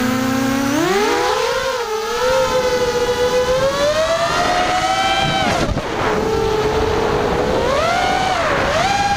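Whine of an FPVModel ZMR180 quadcopter's four 2204 brushless motors spinning Dragonfly 4045 bullnose props, heard from the onboard GoPro. It starts as a low, steady armed idle, then about a second in the pitch rises sharply as the throttle comes up for takeoff. After that the whine keeps rising and falling with throttle, dropping briefly near six seconds in.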